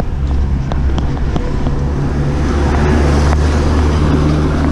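A car's engine running as it comes up from behind and draws alongside a bicycle on a steep climb, a steady low hum, with tyre hiss on the wet road growing from about halfway through.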